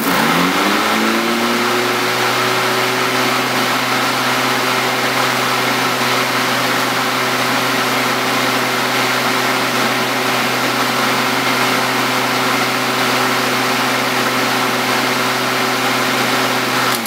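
Kobalt KM210 corded electric lawn mower's brushed motor switched on, rising in pitch as it spins up over about the first second, then running at a steady speed with a constant hum and whine until it cuts off at the end. It is running normally on its newly fitted 50 amp bridge rectifier.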